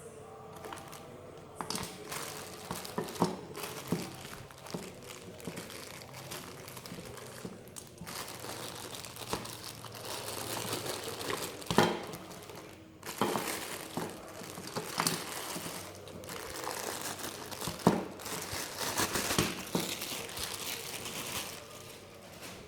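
Packaging being unwrapped and handled: continuous crinkling and rustling, with a few sharper knocks or snaps.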